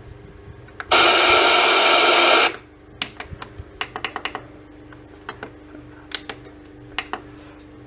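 Radio static hissing from the Emerson Research CKW2000 clock radio for about a second and a half, tuned to a channel with no signal. It stops, then a string of light, irregular clicks follows as the radio's buttons are pressed.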